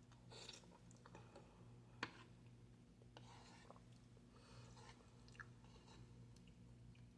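Faint chewing and mouth sounds, with a short click about two seconds in and another near five and a half seconds, over a low steady hum.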